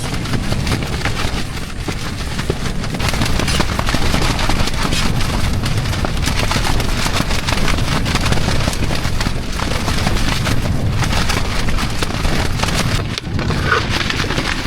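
Strong wind buffeting the microphone: a loud, continuous rumble and hiss with no let-up.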